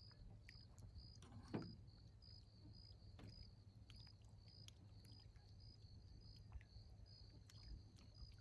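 Faint, steady chirping of a cricket, about two chirps a second, with a single knock about a second and a half in and a few faint clicks.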